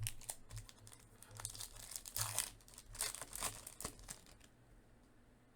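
A crinkly trading-card pack wrapper being torn and crumpled in the hands, a run of crackling strokes that stops about four and a half seconds in.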